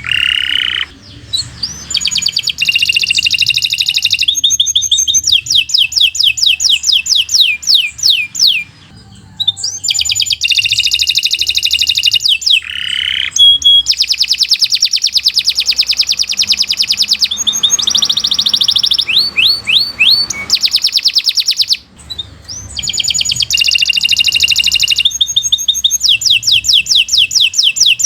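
Domestic canary singing a long, fast song of rapid repeated trills and high chirps, with short breaks about 9 and 22 seconds in.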